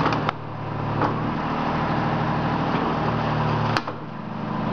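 Auram Press 6000 automatic compressed earth block press running through its cycle: a steady motor hum with sharp clicks near the start and about a second in. A loud click comes a little before the end, after which the lowest part of the hum drops away.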